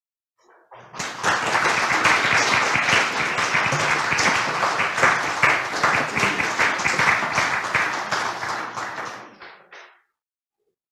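Audience applauding, many hands clapping together; it starts about a second in and dies away near the end.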